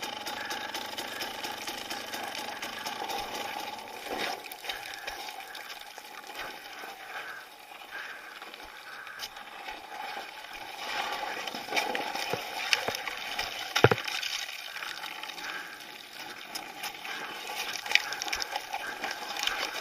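Dirt bike engine running at low revs as the bike creeps over rock, with a few sharp knocks of the tyres and chassis striking the rock, the loudest about two-thirds of the way through.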